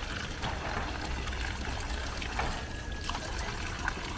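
Water trickling steadily, the running water of the rice terraces' irrigation channels, over a low steady rumble.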